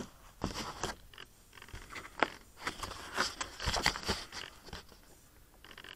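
Irregular crackling and scraping noises, several short clusters of them with the densest in the middle.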